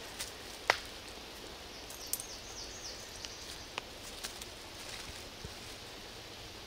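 A dog nosing and stepping about in dry leaf litter and twigs, with a few short sharp crackles and snaps over a quiet outdoor background.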